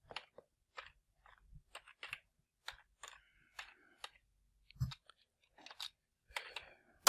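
Keys of a computer keyboard being typed: irregular, separate light clicks, roughly two a second, with one slightly heavier knock near the middle.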